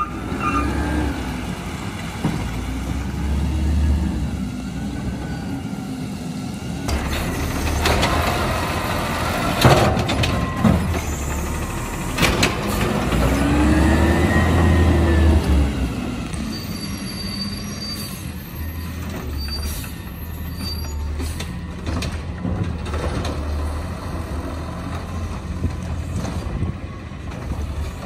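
Natural-gas automated side-loader garbage truck running as it works along the curb. Its engine rises and then falls in pitch about halfway through, with a few sharp knocks and hisses before that.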